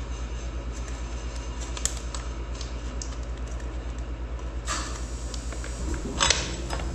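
Rear axle of a dirt bike being worked out of the wheel hub: a few light metallic clicks, then two short metal-on-metal scrapes about five and six seconds in, with the axle sliding out freely. Under it a steady low hum with a fast even pulse, from a machine running in the background.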